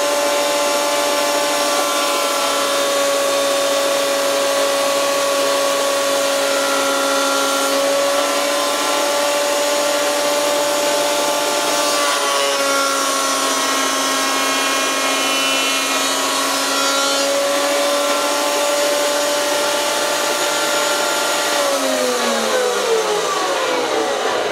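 Electric bench surface planer running with a steady high hum as a wooden block is pushed across its cutter head with a push block. About 22 seconds in the motor is switched off and its pitch falls as the cutter head spins down.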